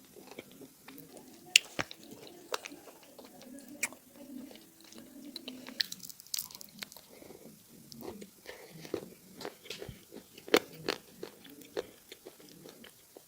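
Edible clay being bitten and chewed close to the microphone, with sharp crunches scattered among quieter chewing. The loudest bites come about one and a half seconds in and again near ten and a half seconds.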